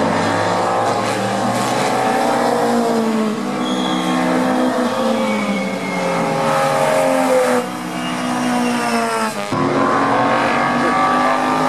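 Engines of several pre-1966 GT race cars at racing speed through a corner, their pitch falling and rising as the drivers brake, shift and accelerate, with more than one car heard at once.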